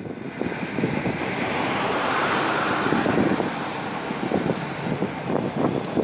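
Travelling noise heard from a moving vehicle in city traffic: a steady rush with wind buffeting the microphone, swelling loudest in the middle.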